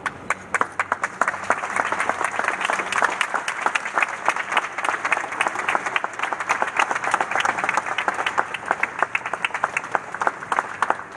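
Audience applauding. The clapping breaks out suddenly, is full within a couple of seconds, and thins to scattered claps near the end.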